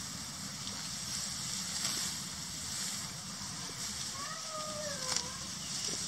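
Dry harvested rice straw rustling and crackling as it is gathered by hand into a sheaf for binding. A short, pitch-curving distant call sounds about four seconds in.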